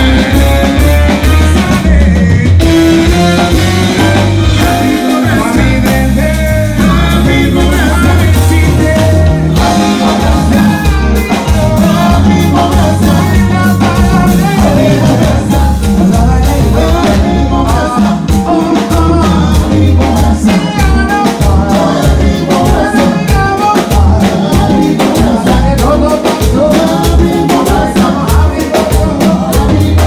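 Live band playing a song with singing over drum kit, bass guitar and keyboards, loud and with a steady beat.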